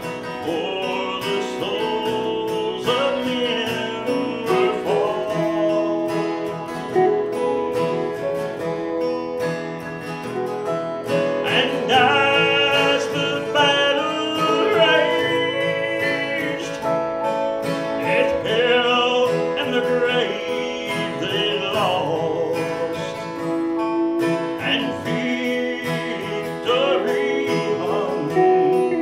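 Live country gospel song: a man singing to his own strummed acoustic guitar, with a second instrument accompanying.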